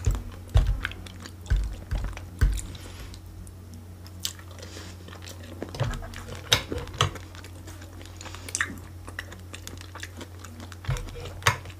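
Close-miked chewing and eating: wet mouth clicks and smacks at irregular intervals, with a few low thumps, over a steady low hum.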